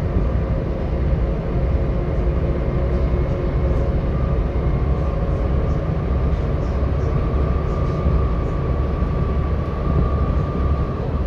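Volvo B7TL double-decker bus under way, heard from inside the saloon: its diesel engine gives a steady low rumble, with a thin steady whine on top that rises slightly in pitch about halfway through.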